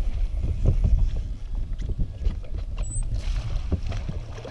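Wind rumbling on the microphone over open water, with scattered short knocks and splashes. Near the end a hooked musky thrashes at the surface as it is netted.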